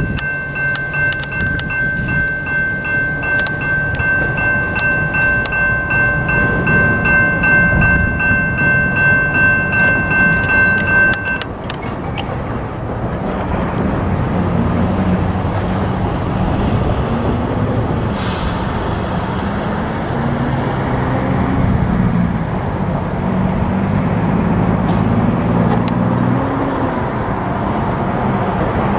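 Freight locomotive's air horn held in one long chord of several notes, cutting off suddenly about eleven seconds in. After it, the train rumbles past with the low hum of the diesel engines.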